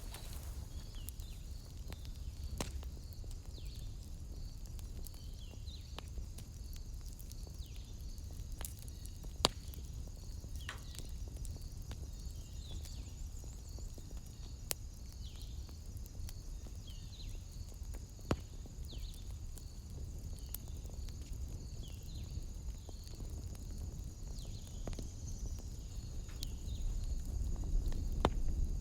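Wood fire burning in a fireplace, with a low rumble and occasional sharp crackles and pops. Behind it, a steady high chirring of night insects, with short falling chirps repeating every second or two.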